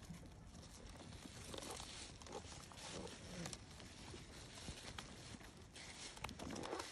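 Faint sounds of a flock of sheep grazing close by: grass and leaves being torn and chewed, and hooves shuffling over stony ground.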